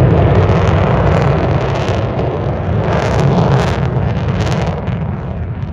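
Loud, steady aircraft engine noise with wind rumbling on the microphone, swelling a little midway and easing near the end.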